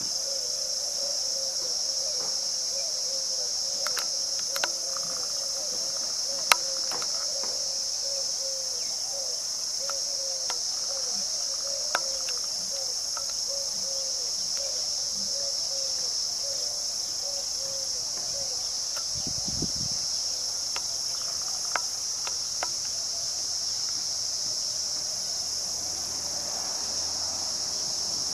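Steady, high-pitched chorus of insects. A lower sound pulses about three times a second through the first ten seconds, and a few sharp clicks stand out now and then.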